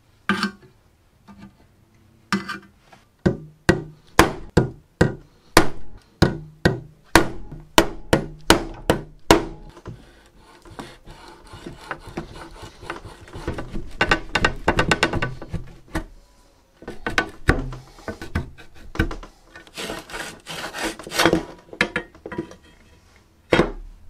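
Hand tools working the rivets out of a rusty hand saw's wooden handle. A run of sharp metal knocks, about two a second, gives way to scraping and rubbing, then more knocks mixed with scraping.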